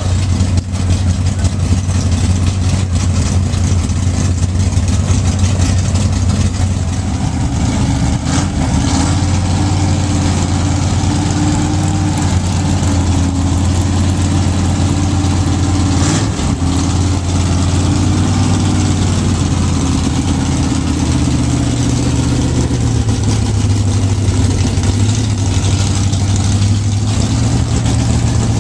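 Dirt-track modified race car's engine idling loudly and steadily, its pitch stepping up slightly a couple of times in the second half.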